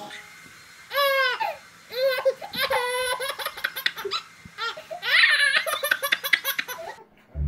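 A baby laughing in three high-pitched bouts of belly laughter.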